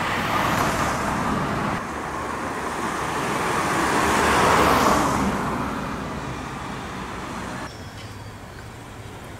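City street traffic: a road vehicle passes close by, its tyre and engine noise swelling to a peak about halfway through and then fading away.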